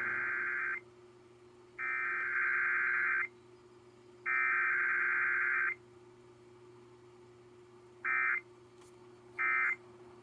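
Emergency Alert System SAME data bursts over a faint steady hum. Three warbling digital header bursts of about a second and a half each come at about two-second intervals. Then three much shorter bursts follow, the end-of-message code.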